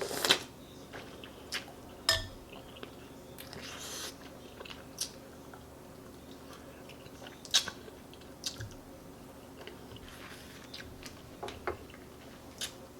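Close-miked mouth sounds of eating chicken noodle soup: chewing and wet smacks, with scattered sharp clicks every second or two.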